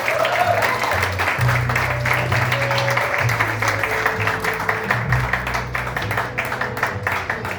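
Music with a bass line moving through held low notes, playing under crowd noise and scattered clapping.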